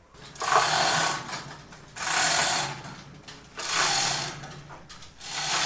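Manual chain hoist hauled in repeated pulls, its chain rattling and ratcheting through the block in about one-second bursts every second and a half as it lifts a rice-milling machine.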